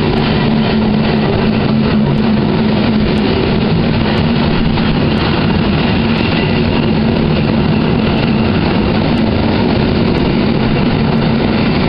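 ED72A electric multiple unit, rebuilt with asynchronous traction drive, running past close alongside the platform: a steady, loud rolling noise with a steady low hum from its drive.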